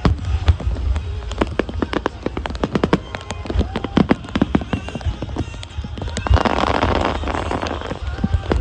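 Fireworks display going off: a rapid series of sharp cracks and bangs over deep booms, with a thicker rush of crackle about six seconds in.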